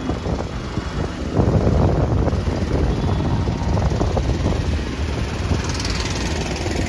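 Wind rushing over the microphone and road noise from a moving scooter in street traffic, growing louder about a second and a half in.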